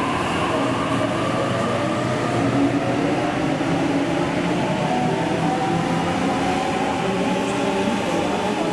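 A passenger train moving at the station platform: a loud, steady running rumble with faint whining tones that drift slowly in pitch.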